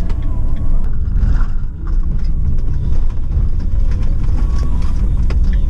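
Roadtrek camper van on the move: steady, loud low road and engine rumble.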